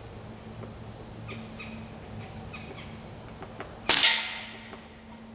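A single shot from a Ruger Air Hawk break-barrel spring-piston pellet rifle about four seconds in: one sharp crack that dies away over most of a second.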